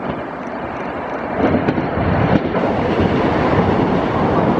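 Diesel multiple unit passing close below: engine and wheels rumbling on the track, growing louder about a second and a half in as it nears, with a few faint knocks from the wheels.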